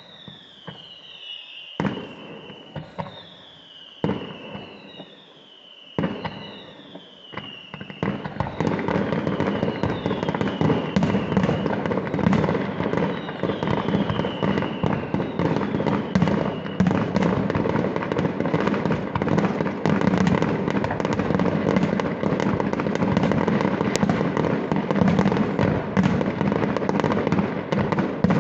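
Fireworks display: first several whistling shells, each a falling whistle with a sharp bang, about every two seconds; then, about eight seconds in, a dense continuous barrage of rapid bangs and crackle that runs on.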